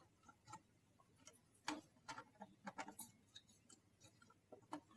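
Near silence broken by faint, irregular clicks and light taps, as of computer parts and the PC case being handled.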